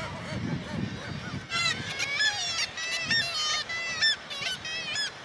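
Black-legged kittiwakes at a breeding colony calling: a run of repeated calls that rise and fall in pitch, several birds overlapping, from about a second and a half in until near the end.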